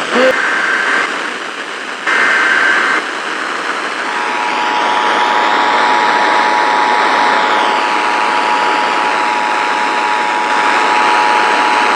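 Emergency Alert System header: two short bursts of SAME data tones, each about a second long, then the two-tone EAS attention signal (853 and 960 Hz together) held steady for about eight seconds, all over a constant radio hiss. It announces the start of a new alert.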